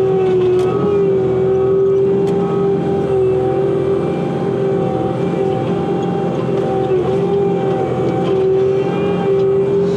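Bobcat T86 compact track loader's diesel engine running at high throttle with a steady whine, its pitch sagging slightly now and then as the grapple is worked under load.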